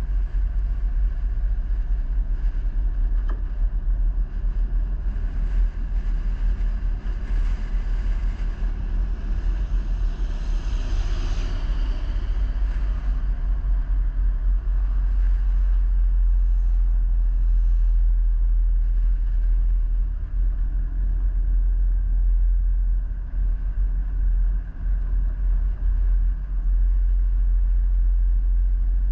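A vehicle driving along, a steady low rumble with a stretch of louder, hissier noise about ten seconds in.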